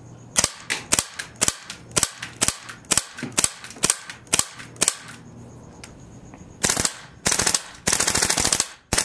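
Daytona Gun FAL airsoft rifle firing: about a dozen single semi-auto shots, roughly two a second, then several rapid full-auto bursts, the last one short. It is being test-fired with a flattened original hop-up bucking and a twist barrel.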